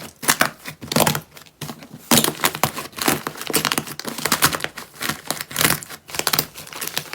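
Slime being squeezed and pressed by hand, giving dense runs of crackling, popping clicks in irregular bursts.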